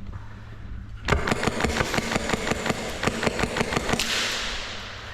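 Airsoft gun firing: a quick, even string of sharp shots starting about a second in and lasting about three seconds, followed by a brief hiss that fades.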